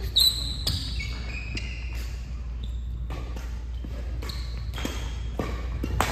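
Badminton rackets striking shuttlecocks, sharp irregular hits from several courts echoing around a gym hall, with short sneaker squeaks on the court floor. A steady low hum runs underneath.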